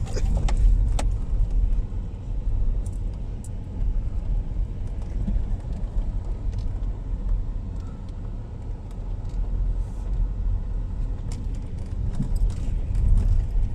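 Front-wheel-drive SUV driving over a rough, muddy dirt road: a steady low rumble of engine and tyres with scattered small knocks and rattles.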